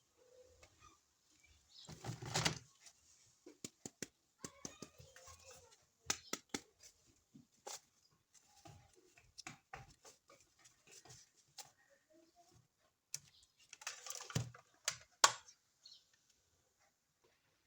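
Hands unboxing and handling toys: packaging rustles in two louder bursts, about two seconds in and near the end, between scattered small clicks and taps.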